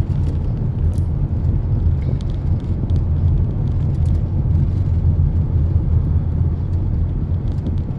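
Steady low rumble of road and tyre noise inside the cabin of a moving hybrid car.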